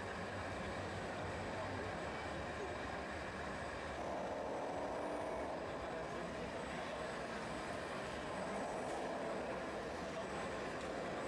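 A 1:14 scale RC wheel loader running steadily as it drives and pushes dirt, over an even background of hall noise.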